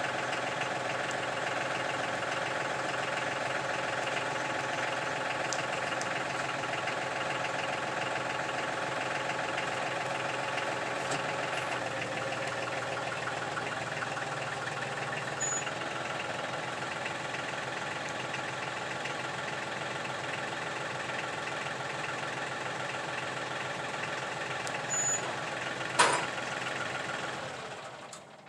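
Tractor engine idling steadily. Near the end there is a single sharp clank, and then the engine shuts off.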